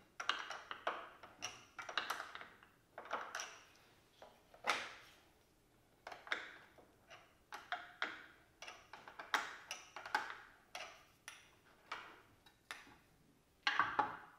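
Light, irregular metal clicks and taps of a hand tool working the bolts of an outboard motor's lower unit (gearcase) as it is taken off to reach the water pump impeller, with a louder knock near the end as the housing comes free.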